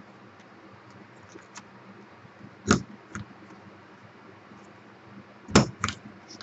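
Hand-held plastic corner-rounder punch snapping shut as it clips the corners of a paper bookmark: two sharp clicks about three seconds apart, the second followed by a smaller click.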